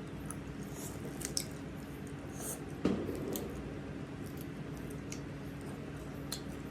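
Close-miked eating sounds: wet chewing with scattered sharp mouth clicks and smacks, and one soft thump about three seconds in.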